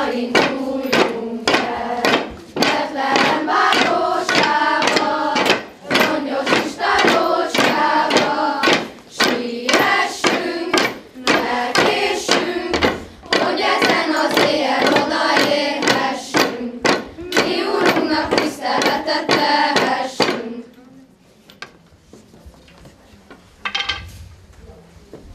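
Children's group singing a Hungarian shepherds' carol, with wooden shepherd staffs knocking on a tiled floor in a steady beat. The singing stops about 20 seconds in. A single staff knock comes near the end.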